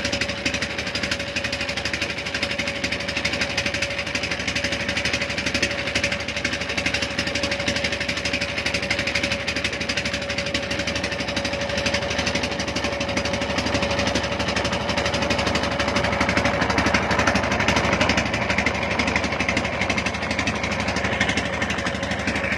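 Diesel engine of a pompong, a small wooden island motorboat, running steadily under way, with a steady hum over the noise of the run.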